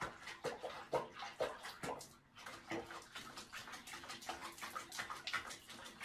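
Soft, irregular splashing and sloshing of bathwater in a small plastic tub as a cat is bathed in foamy water.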